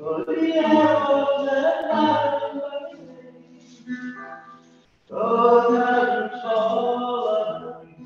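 Voices singing together: a loud sung phrase, a softer stretch, then another loud phrase that fades near the end.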